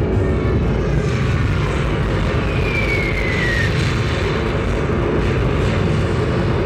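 Light-show soundtrack sound effects of a wartime air raid: a deep, steady drone of aircraft engines, with a short falling whistle like a dropping bomb about three seconds in.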